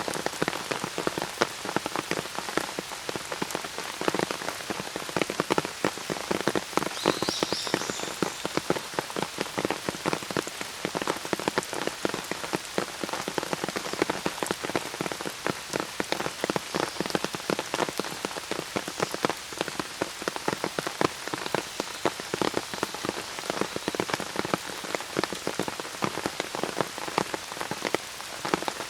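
Steady rain, with dense close drops pattering on an umbrella. A single short, high bird chirp comes about seven seconds in.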